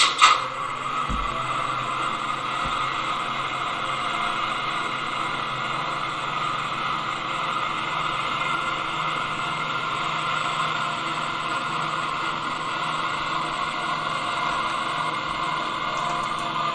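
Gauge 1 model of the E 71 electric locomotive running steadily along the track, giving a steady rolling and humming running noise. A short click comes right at the start and a brief low thump about a second in.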